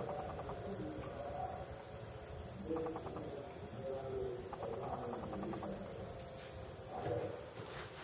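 Faint chirping of insects: short, rapidly pulsed trills repeating every second or two, with a steady thin high-pitched tone underneath.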